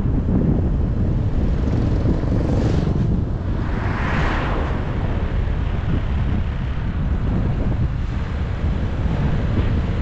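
Wind buffeting the microphone of a camera on a moving vehicle, a dense steady rumble mixed with road noise. A brief swell of rushing noise rises and fades about four seconds in.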